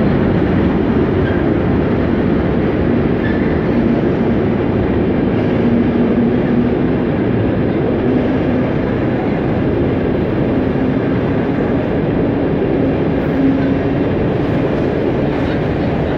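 Freight train of intermodal container flat wagons rolling steadily past at speed: a loud, continuous noise of steel wheels running on the rails that stays even throughout.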